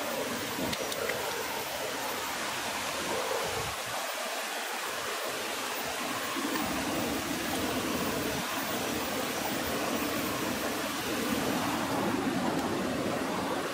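Steady rush of flowing stream water, an even hiss with no let-up.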